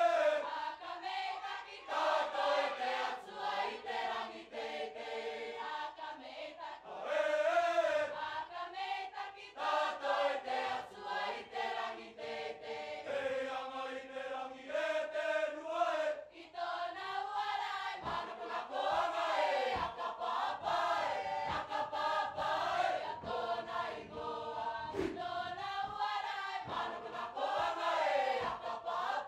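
A mixed choir of male and female voices singing a Cook Islands group song in parts, in phrases with short breaks between them.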